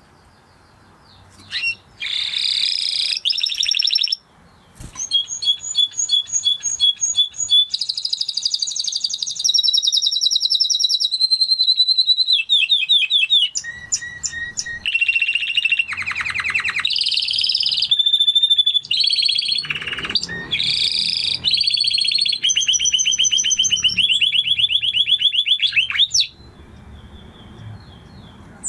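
A Spanish Timbrado canary singing one long song of rapid trills and quickly repeated notes, changing from phrase to phrase, that starts about a second and a half in and stops abruptly near the end.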